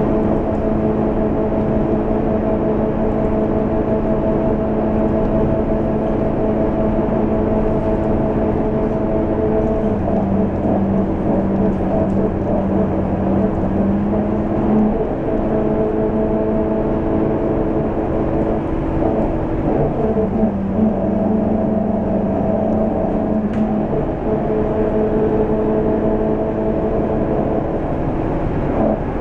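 Scania K230UB city bus's five-cylinder diesel engine and drivetrain droning steadily at cruising speed, heard from inside the passenger cabin, with road and tyre noise beneath. The drone changes its note twice, about ten and twenty seconds in, for a few seconds each time.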